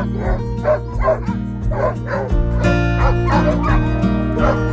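Excited sled dogs barking and yipping rapidly and without pause over steady background music, as huskies harnessed on the gangline wait to run.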